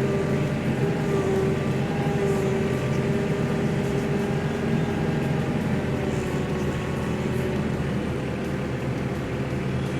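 Milwaukee M18 Fuel 20-inch dual-battery electric chainsaw running steadily, its motor tone wavering slightly in pitch.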